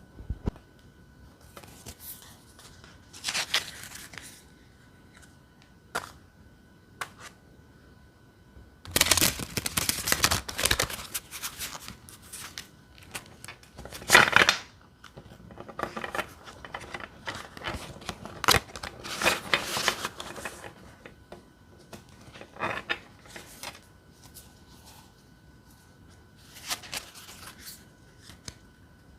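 Lioness Oracle Tarot cards being shuffled by hand: irregular bursts of rustling and riffling card stock with quiet pauses between, the busiest stretch about nine to eleven seconds in.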